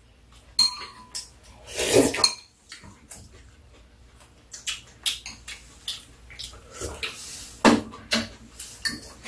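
Metal spoons and chopsticks clinking and scraping against bowls during a meal, in scattered short clicks, with a louder clatter about two seconds in and another sharp clink near the end.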